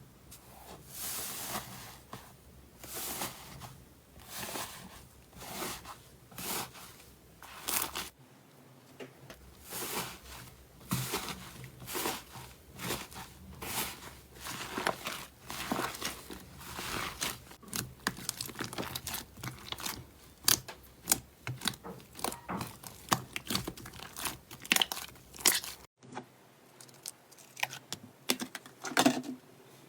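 Hands pressing, stretching and poking slime, making a run of short, irregular clicks and pops. Hard cuts between clips come about 8 seconds in and near the end.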